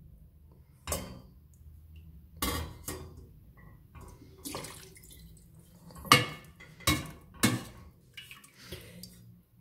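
Steel ladle scooping meat broth and vegetables from a stainless stockpot and tipping them into a metal colander: scattered sharp clinks of the ladle against the pot and colander, the loudest about six seconds in, with broth splashing.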